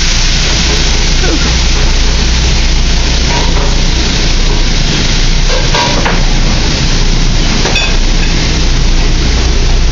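Steady, loud noise of a busy restaurant cooking line: sauté pans sizzling on a gas range under a running exhaust hood fan, with a couple of short clinks partway through.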